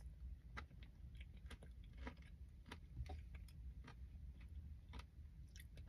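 Faint chewing of a mouthful of yogurt with granola and strawberries: soft, irregular mouth clicks and small crunches.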